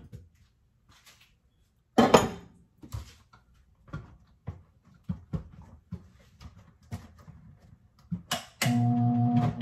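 Knocks and clunks as frozen strawberries go into a plastic blender jar and its lid is fitted, the loudest about two seconds in. Near the end the countertop blender's motor starts and runs with a steady hum, blending the thick cream and frozen strawberries.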